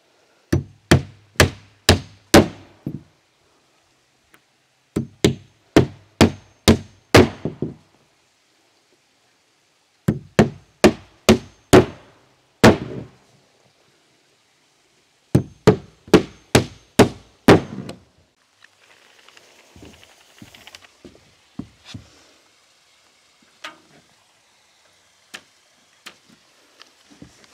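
Claw hammer driving nails into plywood roof sheathing: four quick runs of six to eight blows each, a few seconds apart. In the last third, lighter scattered knocks and shuffling of steps across the plywood deck.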